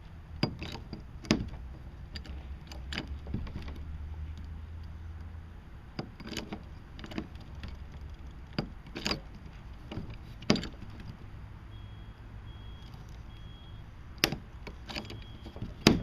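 Sharp, irregular clicks and knocks from a hand rivet tool being worked repeatedly to pull a kayak rigging rivet tight, about a dozen over the stretch, some spaced a second or two apart.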